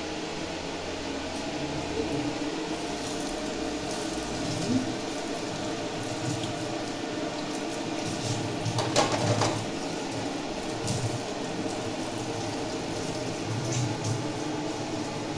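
Water and hand-washing sounds at a stainless steel kitchen sink as meat is rinsed under the tap, with a brief louder clatter about nine seconds in.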